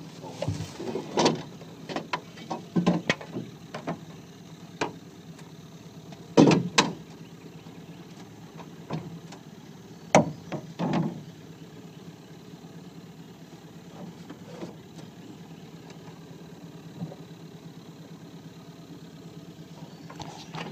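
Scattered knocks and clunks of a trotline being hauled in and handled aboard a small boat, the loudest about six and a half, ten and eleven seconds in, over a steady low hum.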